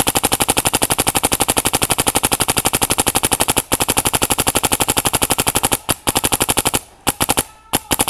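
Macdev Clone GTI electronic paintball marker firing a rapid, even stream of shots, about a dozen a second, with a brief break a little past halfway. The stream stops about seven seconds in, followed by a few single shots.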